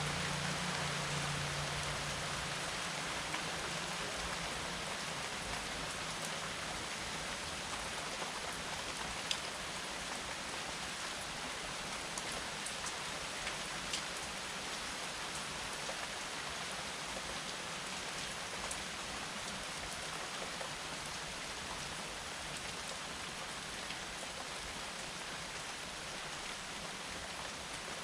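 Steady rain falling in an even hiss, with a few single louder drop ticks. A low rumble fades out in the first couple of seconds.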